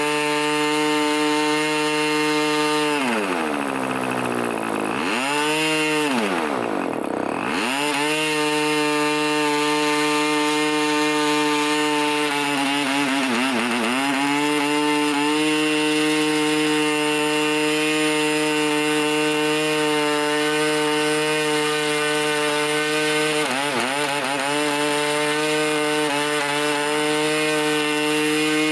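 Irvine 20 two-stroke model diesel engine running unsilenced on a 10x6 propeller at about 9,000 rpm. Twice in the first few seconds its pitch falls steeply as the throttle is closed and climbs back as it is opened again. Later it dips briefly twice and otherwise holds a steady high speed.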